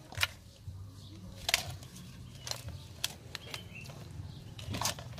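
Metal spoons clinking and tapping against an aluminium serving bowl as a whole roast chicken is lifted and settled onto the leaves: several separate sharp clinks, the loudest near the start and about a second and a half in.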